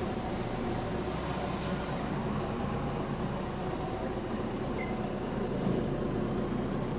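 Bus engine running steadily, heard from on board a bus with an exhaust leak. One short sharp click comes about a second and a half in.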